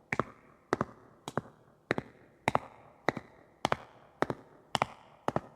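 High-heeled shoes walking at a steady pace on a hard floor, about ten sharp clicking steps a little under two a second, each one a quick double tap with a short echo behind it.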